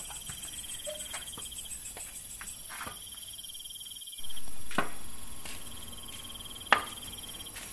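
Crickets chirping, a steady pulsing high trill. About four seconds in, a louder rush of noise swells and fades over a couple of seconds, and a sharp click comes near the end.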